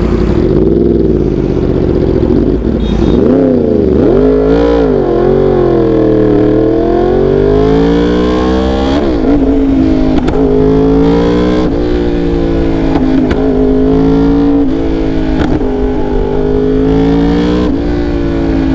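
2019 Yamaha R1's crossplane inline-four engine revved through a clone Austin Racing slip-on exhaust, the revs climbing and dropping with each blip of the throttle. A few sharp pops come from the exhaust between the revs, the loud backfire of this short exhaust.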